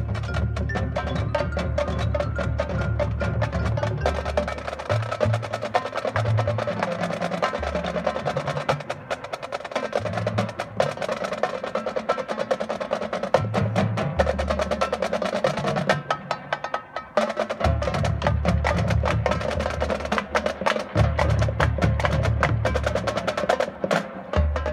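High school marching band and front ensemble playing a percussion-heavy passage: rapid clicking and drum strokes over held band tones and low bass notes that shift every second or two.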